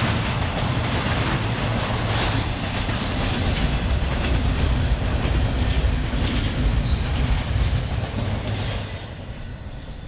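Double-stack intermodal container train's well cars rolling past, a steady rumble of wheels on rail. It drops away near the end as the last car clears.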